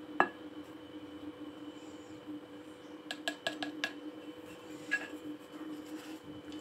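Spoon knocking against a steel mixing bowl while cornflour is spooned in. There is one sharp clink just after the start, a quick run of about five light taps around three to four seconds in, and one more about five seconds in, over a faint steady hum.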